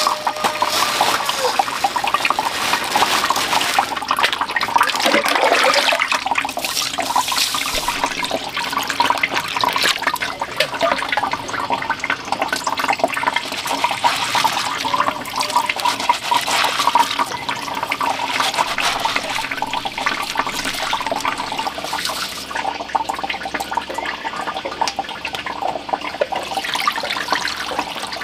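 Rice being washed by hand in a metal basin of water: grains swishing and rubbing together, with water sloshing and splashing.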